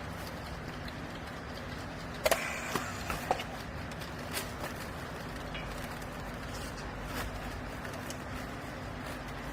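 Used-clothing baler's machinery running with a steady low hum, with a few sharp knocks between about two and three and a half seconds in.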